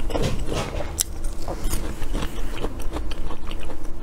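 A person biting and chewing food close to the microphone, with many small irregular crunches.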